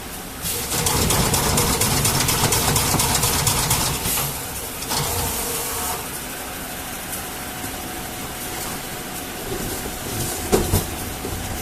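Corrugated box stitching machine running, a fast, even clatter of stitching strokes for about three and a half seconds, then a shorter run about five seconds in. After that a steady machine hum remains, with a few sharp knocks near the end.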